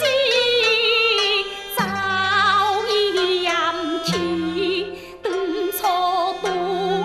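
Teochew (Chaozhou) opera aria: a woman sings a wavering, heavily ornamented melodic line with vibrato over instrumental accompaniment. Held low notes under the voice change about every two seconds.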